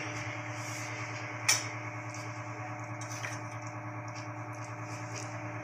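Steady low hum of room tone, with a single light click of kitchen utensils about a second and a half in and a fainter click about three seconds in.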